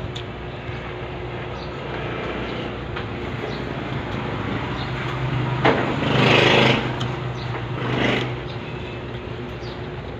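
Road traffic: a motor vehicle's engine hum rises and passes loudly about six seconds in, with a smaller swell near eight seconds, over a steady background drone.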